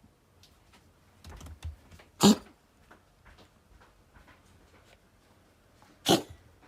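A cat giving two short, sharp coughs about four seconds apart, a strange cough that the owner takes to be painful.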